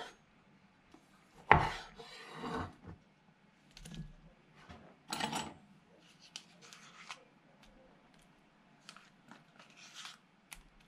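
Kitchen handling sounds of salad-making: a sharp knock about one and a half seconds in, then scattered clatters, rustles and scrapes as cherry tomatoes go into a ceramic bowl and a metal spoon scoops a spread onto the salad.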